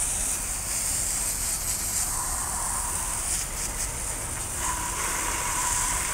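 Steady hiss of water sprayed from a hose spray wand, splashing onto an off-road tyre and black wheel to rinse off the soap suds.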